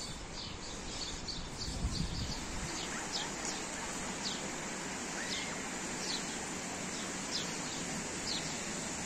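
Small songbirds chirping, short high descending chirps about once a second over a steady outdoor hiss, with a few low thumps in the first two seconds.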